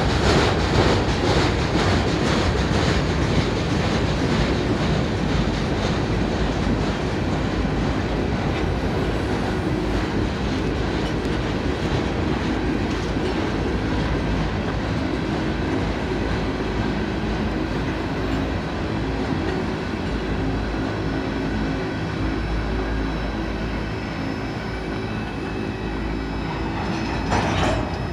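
Freight train hopper cars rolling past on steel rails, with a steady clatter of wheels over the rail joints. The sound slowly fades near the end as the last cars pass and move away.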